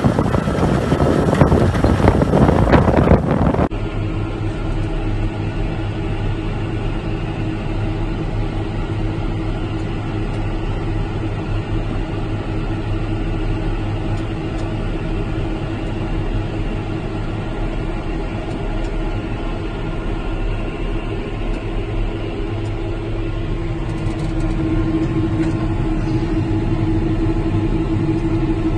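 For the first few seconds, a loud, rough, wind-buffeted rush of a tractor and rear-mounted spading machine working the soil. After a sudden change it becomes a John Deere tractor's engine running at a steady pitch while it pulls the PTO-driven spading machine and seed drill, its note growing a little stronger near the end.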